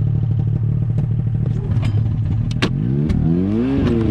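Snowmobile engine idling, then revving up with a steeply rising pitch about three seconds in as the sled pulls away; a couple of sharp clicks come just before.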